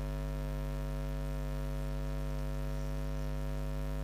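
Steady electrical mains hum in the recording's audio, a low buzz with many overtones that does not change.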